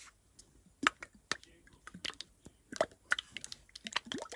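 Squeezed plastic bottle of liquid slime activator squirting, giving an irregular run of sharp clicks and wet pops that come thicker near the end.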